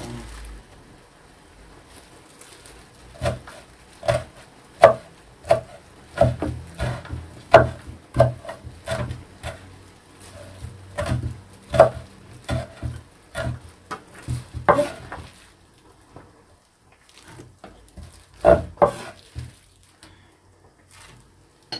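Kitchen knife chopping kimchi on a wooden cutting board: irregular knocks of the blade on the board, about one or two a second, starting a few seconds in. After a short pause there are a few more strokes near the end.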